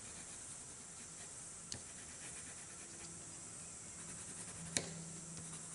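Faint pencil-on-paper sounds over a steady low hiss, with two small clicks, one about two seconds in and a sharper one about a second before the end.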